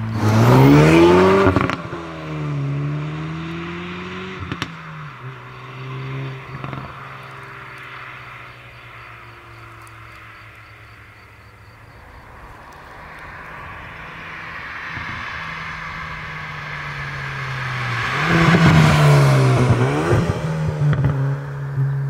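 Hyundai i30 N Fastback's 2.0-litre turbocharged four-cylinder accelerating hard: a loud climb in pitch, a brief dip at a gear change and a second climb, then a couple of sharp exhaust cracks as it backs off and fades away. Later the car comes back, growing steadily louder and passing close by with its engine note falling, near the end.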